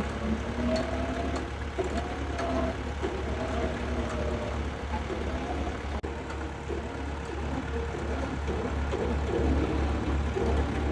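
Flatbed tow truck's engine running steadily with a low pulsing hum, powering the winch that drags a vehicle up the ramp.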